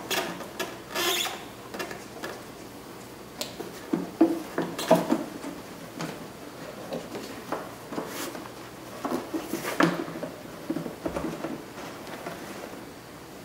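Plastic Chevy Cavalier headlight assembly handled and turned over in the hands: scattered light clicks, taps and scrapes of hard plastic, with a few louder knocks.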